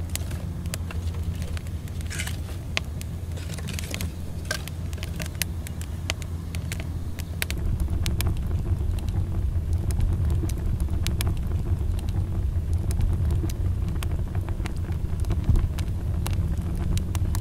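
Wood fire crackling with many small sharp pops over a steady low rumble.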